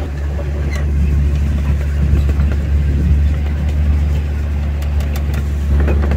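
Steady low engine drone of an amusement-park miniature train running as it carries its riders along the track, with a few light clicks over it.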